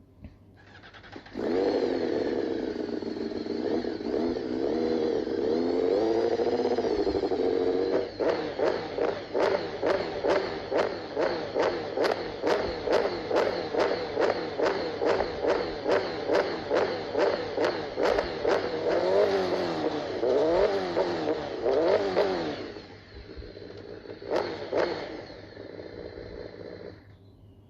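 Honda HRC World Superbike inline-four engine starting and idling high with a wavering pitch, then revved in quick, evenly repeated blips, about two a second. It drops to a lower idle with a couple more blips and cuts off near the end.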